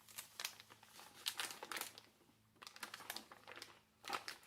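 Plastic vacuum-sealer bag crinkling in irregular bursts as it is handled and fed into the sealer, in two spells with a short pause between.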